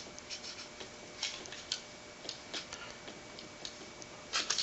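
Light, irregular clicks and taps of small metal pistol parts being handled during disassembly of a Beretta PX4's frame and hammer assembly, with a quick cluster of clicks near the end.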